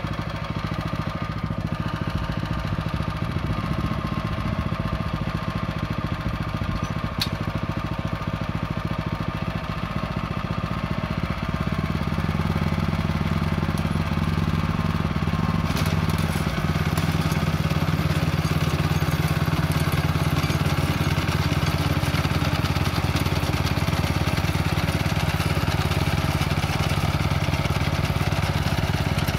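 Neva MB-2 walk-behind tractor's single-cylinder petrol engine running steadily under load as it pulls a KKM-1 potato digger through the soil. The engine gets louder about twelve seconds in and holds there.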